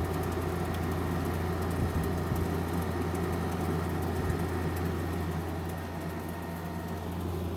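General Electric 5,050 BTU window air conditioner running with its compressor on and blowing cold air: a steady low hum with fan and airflow noise.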